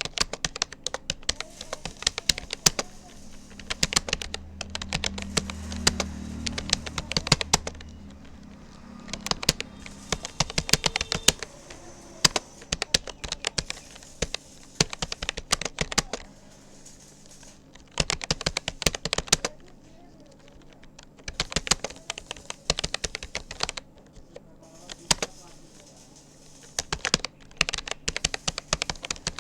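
Rapid typing on a Rapoo computer keyboard: quick runs of key clicks broken by short pauses.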